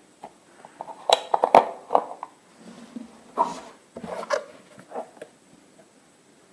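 Cardboard milk carton being handled and opened: a cluster of sharp clicks and crinkles about a second in, then a few softer taps and rubs.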